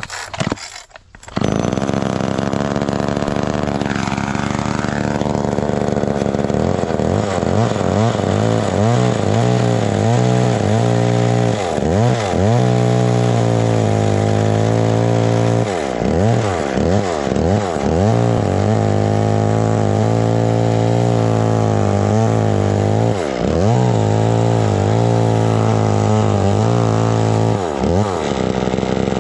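Old two-stroke Jonsered chainsaw from the 1970s running at high speed while cutting a stump down flush with the dirt; from about seven seconds in its engine speed repeatedly dips and recovers as the chain bites into the wood. The saw's sound comes in suddenly about a second in.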